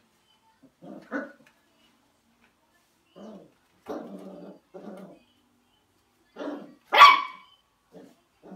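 Dachshund puppy barking in a string of short barks, with one louder, sharper bark near the end.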